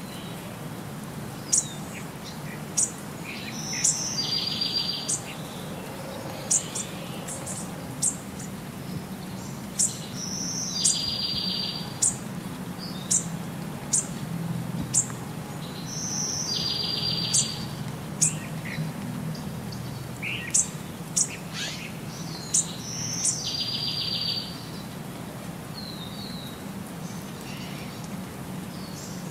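Birds chirping in a looped nature-sound track: the same sequence of short high chirps and a buzzy call repeats about every six and a half seconds, over a low steady hum.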